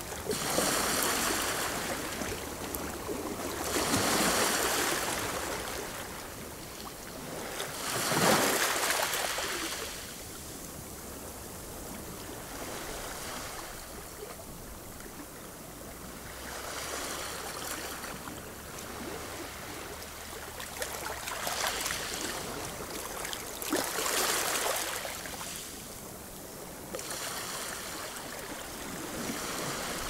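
Gentle waves lapping and washing against a rocky shore. They come in irregular swells a few seconds apart, the biggest about eight seconds in.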